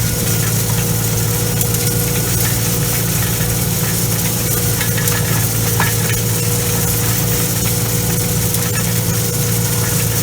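Farm tractor engine running steadily while pulling a hay rake, with an even hiss over it and a faint steady whine.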